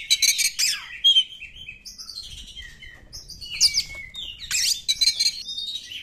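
Oriental magpie-robin (kacer) singing: a fast string of varied high whistles, sweeps and chattering notes with short gaps.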